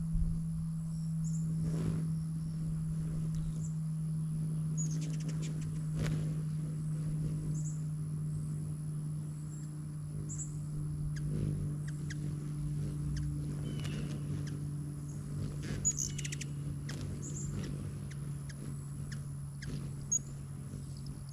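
Hummingbirds chipping: short, high chirps scattered every second or two, over a steady low hum and a few sharp clicks.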